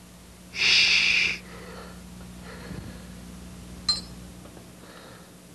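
A long, loud breathy exhale about half a second in, as a puppet character settles down to nap, followed by faint breathing and a brief high tick a little before four seconds in, over a steady low hum.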